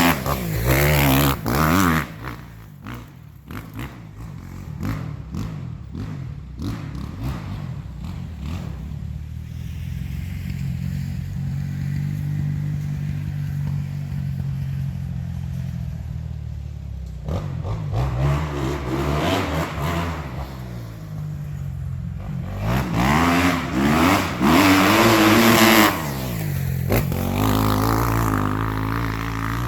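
Kawasaki 250-class motocross bike engine revving hard for the first couple of seconds, then running lower and steadier for a long stretch, then revving up and down again, rising and falling in pitch, in the last third.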